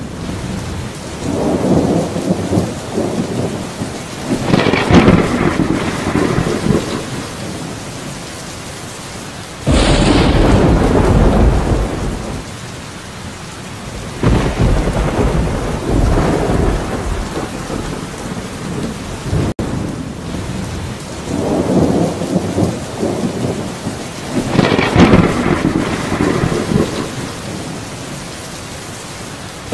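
Steady rain with thunder rolling through it several times. About ten seconds in, a sudden loud thunderclap breaks in with a deep rumble.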